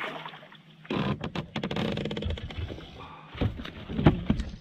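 Landing net lifted out of the water beside a kayak: a rough splashing, draining noise for a couple of seconds, then a few sharp knocks and scrapes as the net is handled, the loudest about four seconds in.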